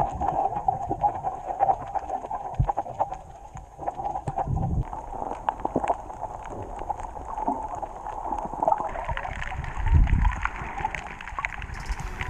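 Muffled underwater sound from a camera in a waterproof housing: water moving and bubbling against the case, with scattered clicks, a steady drone and a few dull low thuds from swimming movement.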